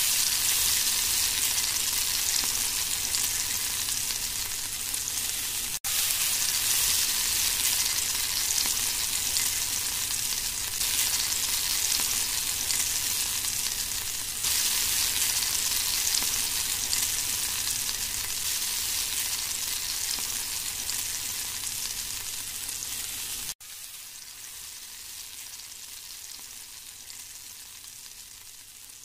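Masala-coated king fish (anjal) slices sizzling in oil on a large non-stick tawa, a steady hiss. It breaks off abruptly about six seconds in and again near the end, and is quieter over the last few seconds.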